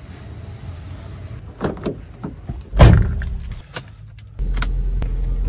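A few clicks and rattles, then a loud car-door thump about halfway through. Near the end a steady low car engine hum sets in abruptly.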